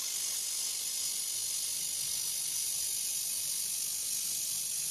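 Handheld laser welder welding aluminium plate: a steady high hiss from the weld as it throws sparks.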